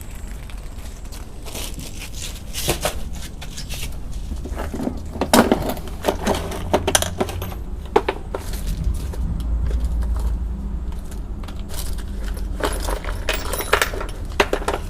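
Irregular clicks, light clatter and rattling of small hard objects being handled, over a steady low hum.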